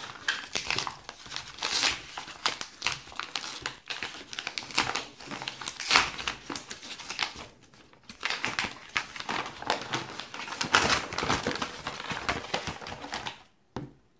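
Yellow bubble-lined paper mailer crinkling and rustling in irregular bursts as hands open it and pull out its contents, with a short lull about halfway through.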